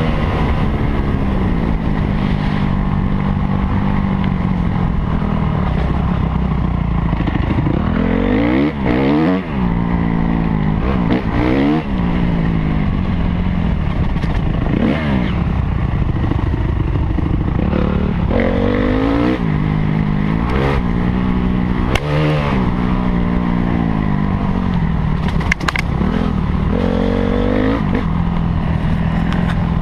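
Honda CRF250R's single-cylinder four-stroke engine under hard riding, heard from the rider's helmet: the revs climb and drop again and again as the throttle is worked and gears change. A few sharp knocks come from the bike over the bumps.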